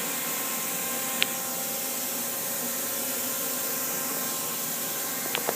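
Steady machinery hum and hiss of a workshop, with a sharp click about a second in and a few small clicks near the end.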